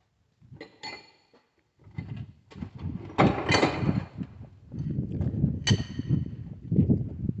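Metal hand tools knocking, scraping and clinking against a tractor diesel engine during dismantling, with two short ringing metallic clinks, one about a second in and one later on.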